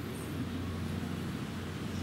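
Indoor room tone of an empty terminal hall: a steady low hum with a faint even hiss.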